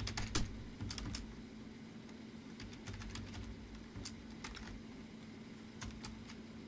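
Typing on a computer keyboard: a quick flurry of keystrokes in the first second or so, then scattered presses with short pauses between them. A faint steady low hum runs underneath.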